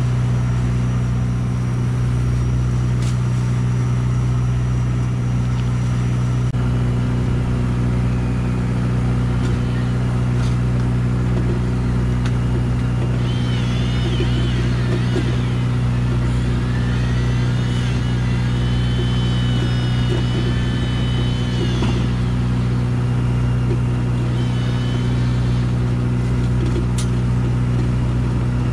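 Fishing boat's engine running steadily, a constant low drone. A faint wavering high whine comes and goes about halfway through.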